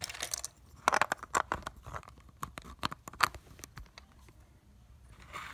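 Handling noise of a phone being set down: a fleece sleeve rubs over the microphone, with a quick run of sharp clicks and knocks and short rustles, and one more brief rustle near the end.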